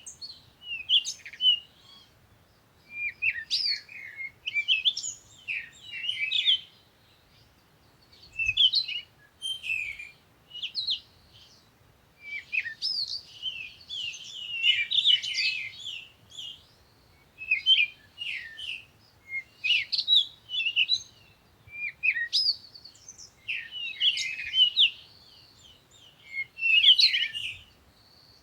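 Songbirds chirping and singing in quick, high twittering phrases, one after another with short pauses between them.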